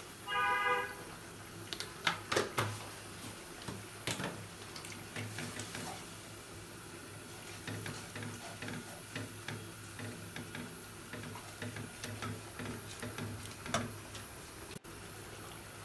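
Wooden spatula knocking and scraping against a metal pot as spice paste is stirred while it fries, a scattering of sharp clicks over faint bubbling.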